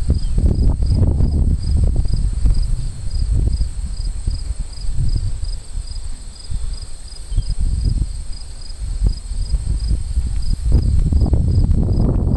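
Insects chirping steadily, a high pulsing chirp repeating about two and a half times a second over a higher continuous trill. A loud, uneven low rumble runs underneath, easing off in the middle and building again near the end.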